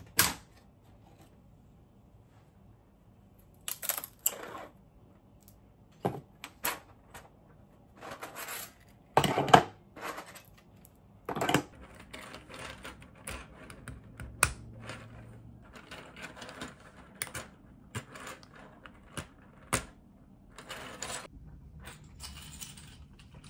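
Hard 3D-printed plastic strap links clicking, knocking and rattling as they are handled and snapped together, in separate sharp clicks with short clattering runs. A sharp click comes right at the start as the printer's build plate is handled.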